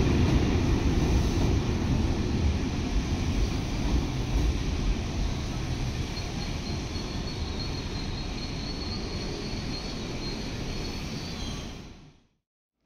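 A passing train's rumble and rail noise, slowly dying away as it moves off, with a faint thin high whine in the middle; the sound fades to silence near the end.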